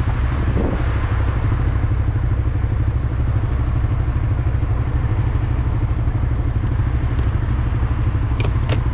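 Suzuki GSX-R motorcycle engine idling steadily while the bike stands still, heard from the rider's helmet with a strong, even low engine note. Two short, sharp high clicks come near the end.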